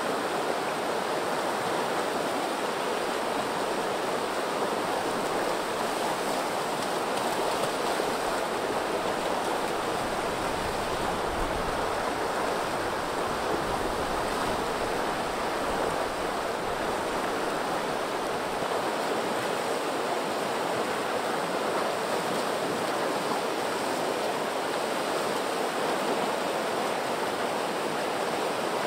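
Steady rush of river water pouring down a rocky cascade into a pool, with whitewater churning continuously.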